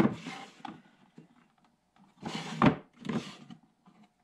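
Wooden drawers of a Harbor Freight eight-drawer wood tool chest being handled: a sharp knock at the start, then a drawer sliding, wood rubbing on wood, with knocks about two and three seconds in.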